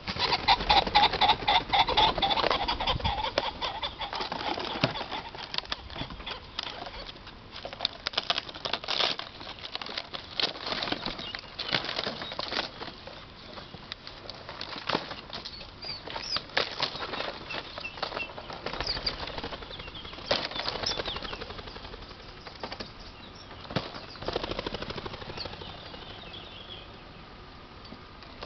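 Pheasants beating their wings in rapid flurries as they flush from transport crates, loudest in the first few seconds, then further bursts of wingbeats on and off.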